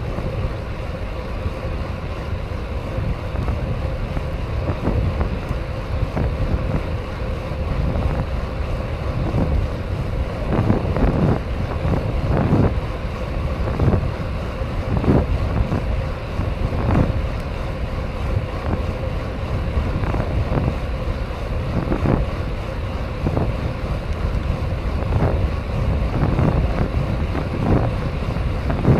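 Wind buffeting the microphone and tyre rumble from a BMX bike being ridden, with short knocks about once a second through the middle stretch.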